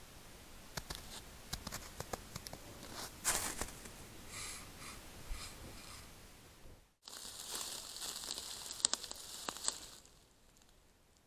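A moose at close range at a salt lick on a stick, making scratchy rustling with scattered clicks and crunches as it works at the salt and its fur brushes the trail camera. The sound cuts out about seven seconds in. A louder stretch of hissing, scratchy rustling with sharp clicks follows and fades near the end.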